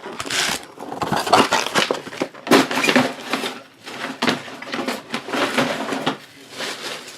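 Plastic or foil trading-card packaging being torn open and crinkled by hand, in irregular bursts of rustling and crackling.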